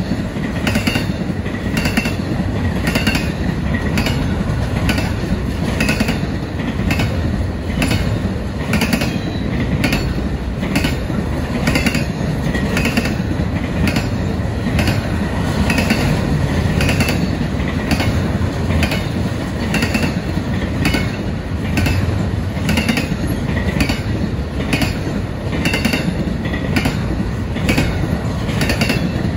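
Double-stack intermodal freight cars rolling past: a steady low rumble of steel wheels on rail with a regular clickety-clack, about two clicks a second.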